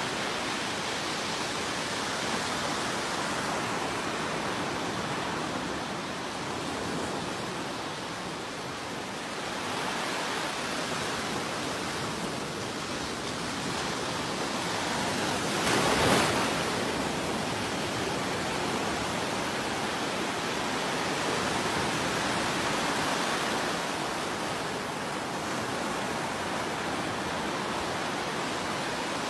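Ocean surf breaking and washing up the shore: a steady rushing that swells and eases slowly, with one brief louder rush about halfway through.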